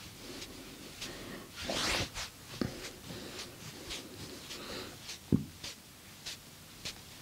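Massage sounds: hands rubbing and tapping on skin, with a louder burst of rubbing about two seconds in and one sharp snap a little after five seconds.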